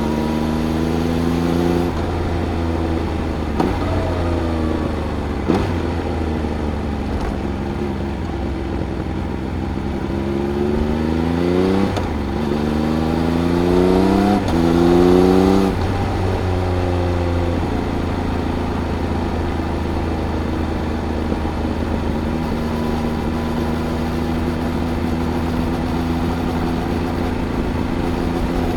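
Triumph Speed Triple RS's inline-three engine with its Arrow silencers, heard from the rider's seat under way. The revs rise and drop repeatedly: a short pull near the start, a fall-off around four seconds in, then a run of climbs broken by gear changes between about ten and sixteen seconds. After that it settles to steady cruising revs.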